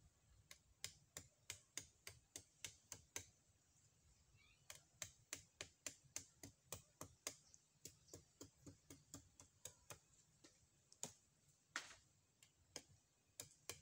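Faint, quick light chops of a bolo (itak) blade working at a thin stem against a palm trunk, about three strokes a second, pausing briefly a few seconds in, with one harder stroke near the end.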